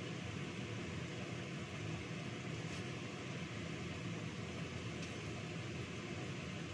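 Steady machine hum with a hiss over it, unchanging throughout, with a couple of faint ticks partway through.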